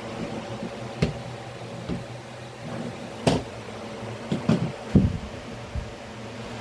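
Several sharp clicks and knocks from PC parts being handled and fitted, the loudest about three seconds in and a quick cluster a second later, over a steady fan hum.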